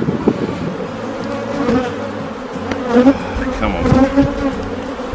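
A mass of honeybees buzzing steadily over an opened hive.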